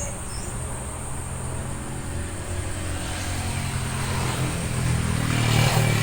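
A motor vehicle's engine running, its low hum growing louder and swelling as it passes about five seconds in.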